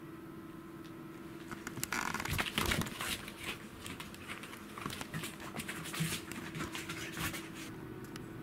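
A Pembroke Welsh corgi and a cat play-fighting: a flurry of scuffling, scrabbling paws and bodies rolling on a floor mat, starting about two seconds in and loudest soon after, over a steady low hum.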